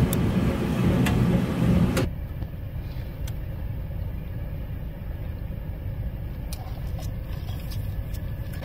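Front-loading washing machine churning a sudsy load, water sloshing against the door glass with a steady low motor rumble; it cuts off abruptly about two seconds in. After that, a much quieter steady low rumble inside a car, with a few faint clicks.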